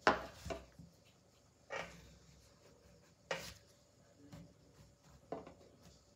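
Kitchen knife cutting into a peeled raw potato on a wooden table: a handful of short, quiet cuts and taps spaced a second or more apart, the sharpest right at the start.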